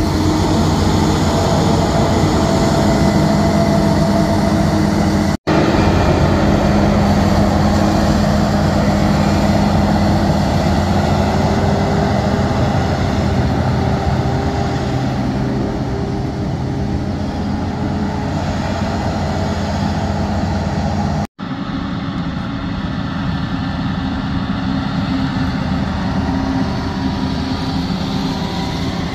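A John Deere 9800i forage harvester chopping maize alongside tractors hauling silage trailers, heavy diesel engines running steadily under load. One engine tone rises in pitch about eleven seconds in, and the sound breaks off for an instant twice and comes back changed.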